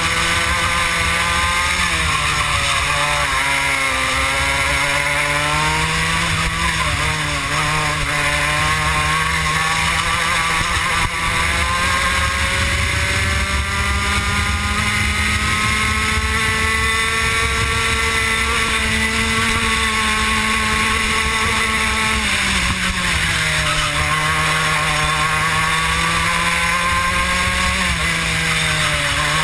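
Two-stroke racing kart engine heard close up from a camera on the kart at racing speed. Its pitch rises and falls with the kart's speed: it dips briefly a few times early on, climbs steadily for a long stretch, drops sharply about two-thirds through, then climbs again near the end.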